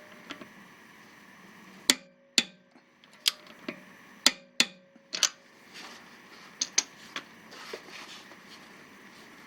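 Click-type torque wrench set to 80 foot-pounds, tightening lug nuts: a run of sharp metallic clicks, several in close pairs, between about two and five seconds in, then a few softer ticks.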